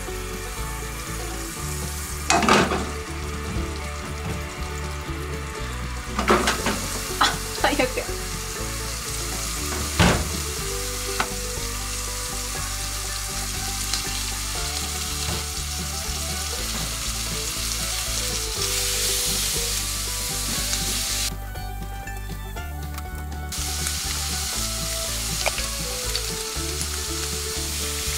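Sliced onion sizzling as it fries in a nonstick frying pan on a gas burner, stirred with a silicone spatula. There are several sharp knocks and clatters in the first ten seconds, and the sizzle drops away for about two seconds a little past the middle.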